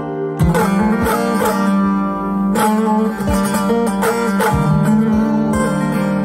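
Three-stringed saz (bağlama) played solo: quick plucked melody notes over a steady ringing drone, with a sharp full strum about every one and a half seconds.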